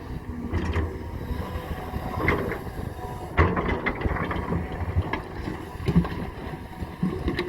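A Cat 320 hydraulic excavator's diesel engine runs steadily under irregular knocks and scrapes of stone as the bucket sets rocks in place. The sharpest knock comes about halfway through, and another near the end.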